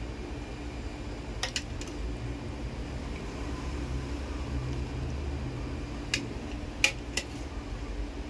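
A steady low hum with a few short, sharp clicks over it: a pair about a second and a half in, and three between six and seven seconds in, the middle one the loudest.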